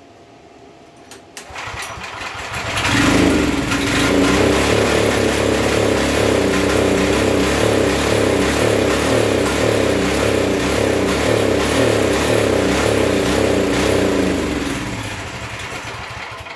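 Small pressure-washer engine pull-started, catching about two seconds in and running loudly and steadily on starting fluid alone, with no gas in the tank. It slows and dies away near the end as the fluid burns off.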